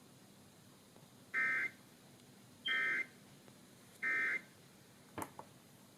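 Emergency Alert System End-of-Message signal: three short bursts of SAME digital data, each a quick two-tone warble, about a second and a half apart, closing the required monthly test. A sharp click follows about five seconds in.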